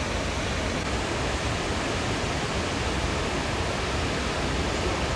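Chatterbox Falls waterfall rushing: a steady, unbroken wash of falling water.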